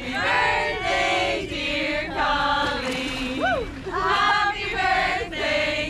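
A group of women's voices chanting together in short rhythmic phrases, with one voice sliding up and back down about halfway through.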